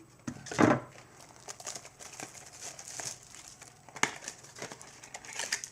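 Plastic wrapper of a baseball card pack crinkling in short bursts as it is handled and opened, the loudest rustle about half a second in.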